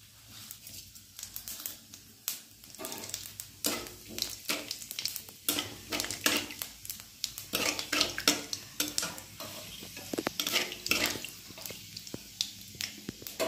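Panch phoron seeds crackling and sizzling in hot mustard oil in a metal kadai, with many sharp pops. A metal spatula scrapes and stirs against the pan.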